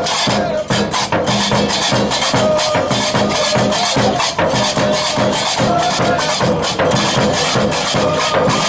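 Music with a fast, evenly repeating clattering percussion beat over a steady low drone and a wavering melody line.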